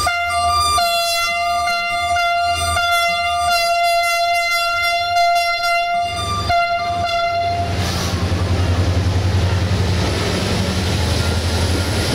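Diesel locomotive horn sounding a long multi-tone blast of about six seconds, then a shorter second blast. After it the locomotive's diesel engine is heard running with a low pulsing rumble.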